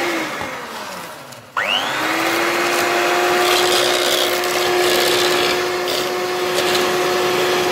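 Electric hand mixer with wire beaters whisking egg yolks and sugar: the motor winds down in the first second, then starts again about a second and a half in with a rising whine and runs steadily.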